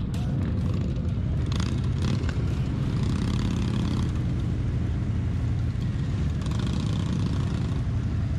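Harley-Davidson V-twin motorcycle engine running steadily on the road at an even speed.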